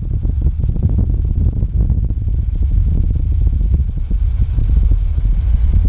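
Strong gusty wind buffeting the microphone: a heavy, low rumble that flutters irregularly.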